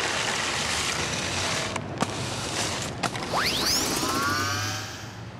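Broom bristles sweeping rubbish across pavement: a steady scratchy scraping with a couple of sharp knocks, then a rising whistling swoosh sound effect with a shimmer about three seconds in.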